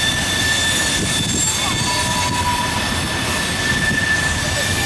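Freight train trash cars rolling through a tight curve: a steady, dense rumble of wheels on rail. Over it runs a thin, high, steady wheel squeal, and a second, lower squeal is added briefly about two seconds in.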